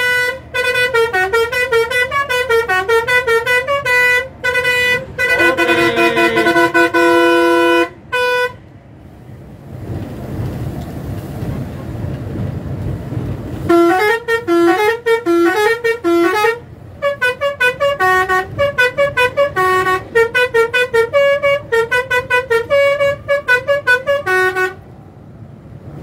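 Bus 'telolet' air-horn module (Basuri type) playing fast melodic tunes of quick, changing horn notes, heard from inside the bus cab. There are two long runs of melody with a few seconds of engine and road rumble between them, from about 8 s in to about 14 s in.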